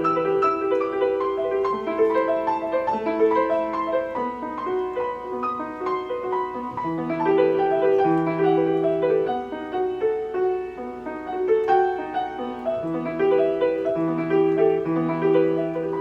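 Steinway piano playing a flowing classical-style piece: many overlapping notes over a recurring held low note.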